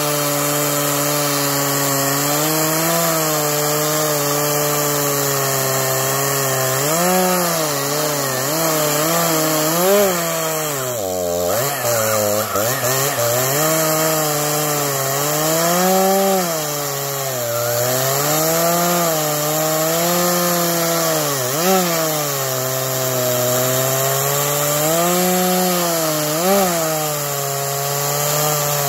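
Stihl MS 231 two-stroke chainsaw at full throttle, ripping a log lengthwise along the grain. The engine pitch wavers as the chain bites and eases, dipping sharply under load about eleven seconds in before picking back up.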